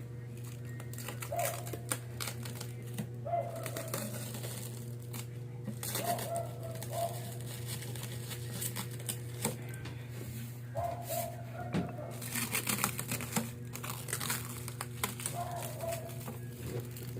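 Air fryer running with a steady hum, with scattered crinkling and clicking over it and short chirps every few seconds.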